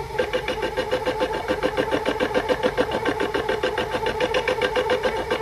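Small lathe spindle of a compact DIY multifunction machine turning a 15 mm steel bar under a very light cut: a steady hum with a fast, even pulsing.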